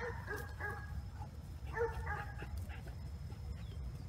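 A dog whining softly: a few short, high whines near the start and again about two seconds in, over a faint low rumble.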